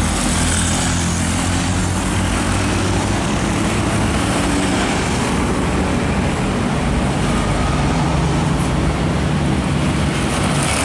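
Diesel engine of a tractor-trailer hauling an ISO tank container, running steadily under load as the truck pulls away, mixed with passing road traffic.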